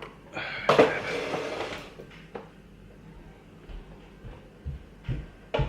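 Small clicks and low knocks of a lock cylinder being handled and picked apart with tweezers. A brief loud rustle comes about a second in.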